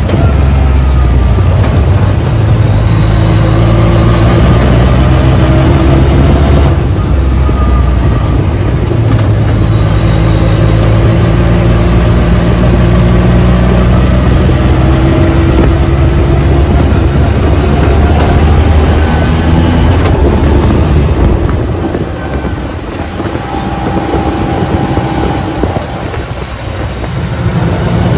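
Side-by-side UTV engine running while driving on a rough dirt trail, heard from inside the open cage, its pitch rising and falling with the throttle over a steady rush of wind and road noise. It eases off twice in the last third, then picks up again near the end.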